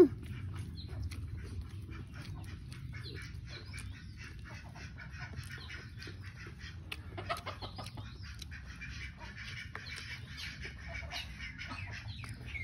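Domestic chickens clucking, busiest in the second half, over the soft chewing and mouth clicks of someone eating by hand. A sharp click comes right at the start.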